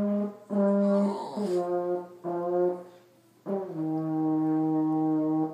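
French horn playing a short descending phrase of separate held notes, ending on a long low note held for nearly two seconds.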